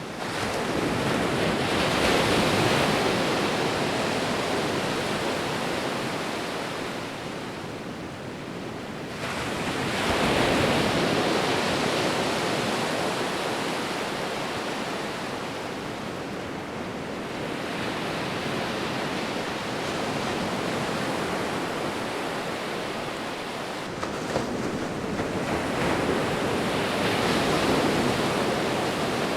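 Sea waves breaking and washing on the shore, the surf swelling and falling back about every eight seconds, four times.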